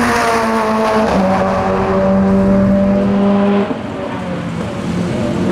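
Race car engine running on track, holding a near-steady note. Its pitch steps slightly lower about a second in, and it drops in level a little before four seconds in.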